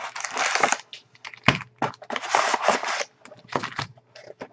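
Plastic wrap crinkling and tearing as a sealed box of trading cards is opened, in irregular bursts with a few sharp cracks.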